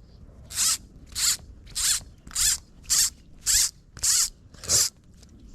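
A fly reel's ratchet buzzes in eight short, evenly spaced bursts about every 0.6 s as fly line is run through it.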